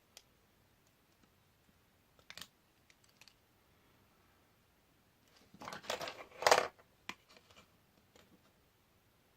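Craft tools and card being handled on a tabletop: a few light taps, then a short burst of scraping and clicking about six seconds in, with a sharp knock as something hard is set down.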